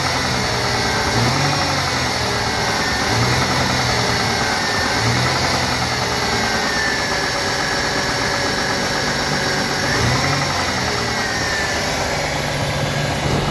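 2001 Ford Mustang's 3.8-litre V6 engine running, its revs rising and falling gently every second or two. No knock is heard: the knock has gone away.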